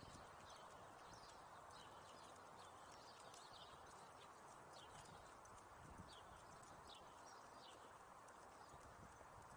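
Faint footsteps on a concrete sidewalk: a quick run of light, sharp clicks over a quiet, steady background hiss.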